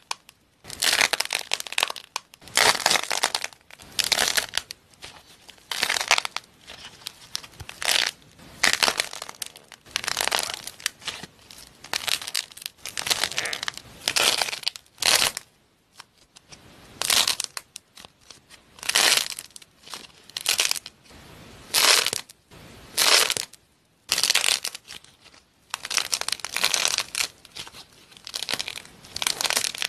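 Fluffy white slime shaped into ice-cream cones being squeezed and crushed by hand, the tan cone breaking apart with it. Short crunching, crackling squeezes follow one another at about one a second, with brief pauses between them.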